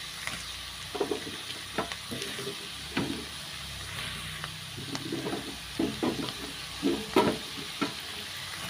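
Chopped vegetables sizzling in hot oil in a nonstick frying pan as carrots are tipped in and stirred, with a steady frying hiss broken by short scrapes and knocks of the spoon against the pan every second or so.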